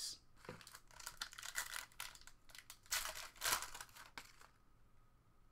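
Foil wrapper of a Panini Select basketball card pack being torn open and crinkled by hand: a run of rustles and rips, loudest about three seconds in, dying away after about four seconds.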